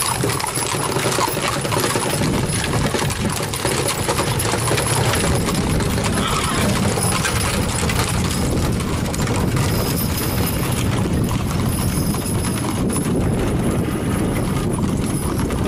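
Horses' hooves clip-clopping on a paved road as saddle horses and teams pulling covered wagons walk past.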